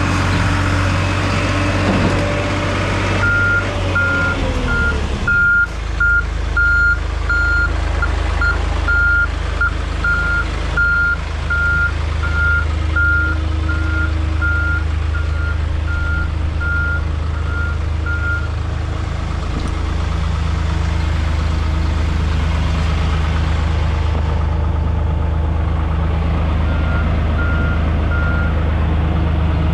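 New Holland LX885 skid steer's engine running under the operator, with its backup alarm beeping over and over while the machine reverses. The beeping stops about two-thirds of the way through and starts again near the end, and a few clanks sound early on.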